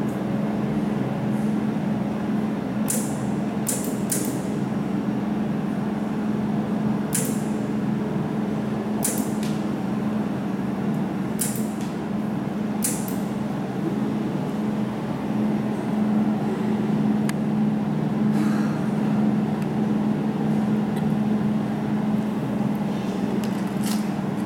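Jewelry laser welding machine humming steadily, with sharp, very short snaps from individual laser pulses hitting a silver chain piece. About eight snaps come in the first half, singly and in close pairs, and a few fainter ones follow later.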